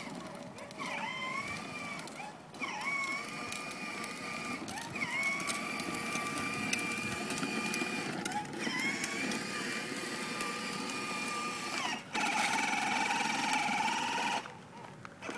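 Electric motor and gears of a child's battery-powered ride-on toy quad whining steadily. The whine cuts out briefly every two to four seconds and starts again. The last run, near the end, is louder and a little lower before it stops.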